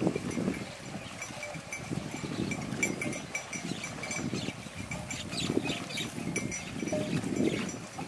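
Water buffaloes grazing close by, tearing and chewing rice stubble in a run of irregular crunching, rustling strokes. A faint, high, rapidly repeating ticking runs behind it.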